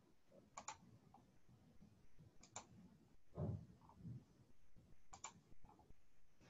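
Faint computer mouse clicks: three clicks about two seconds apart, each a quick double tick. A dull low thump about halfway through is the loudest sound.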